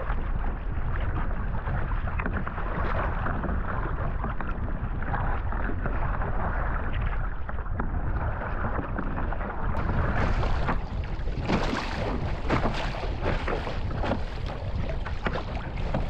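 Choppy water splashing and sloshing against a sea kayak's hull as the paddle strokes through it, under a steady low wind rumble on the microphone. From about ten seconds in, the splashes get brighter and sharper.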